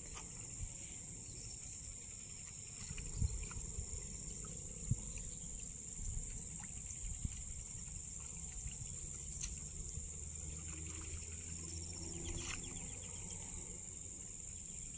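Steady high-pitched chorus of insects, with a low background rumble and a couple of soft knocks about three and five seconds in.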